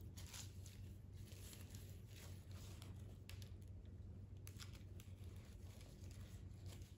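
Faint rustling and crinkling of rose stems and leaves as florist wire is twisted around a small bundle of flowers, over a low steady hum.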